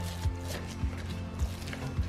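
Background music with a steady beat, about one soft thump every 0.6 seconds, over sustained low notes.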